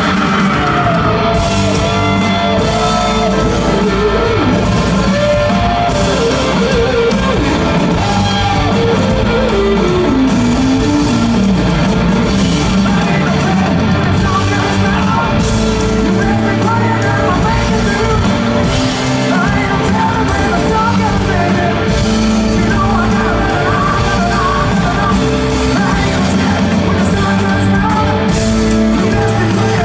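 Rock band playing live, with electric guitar, drums and a male lead singer, picked up from the audience in a large hall.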